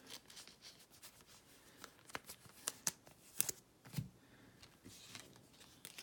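Topps Chrome baseball cards being handled, slid and flicked against each other, giving faint irregular clicks and snaps of stiff card stock. There is a sharper click a little past three seconds in and a soft bump about four seconds in.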